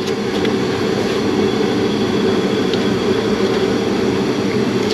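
A steady mechanical drone with no changes in pitch or level, the kind of sound a running shop fan, heater or compressor makes.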